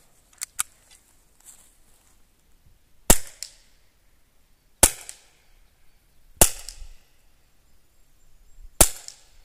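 ASG CZ75D Compact CO2 gas-blowback airsoft pistol firing four single shots, each a sharp crack, spaced about one and a half to two and a half seconds apart. Two light clicks sound about half a second in, before the first shot.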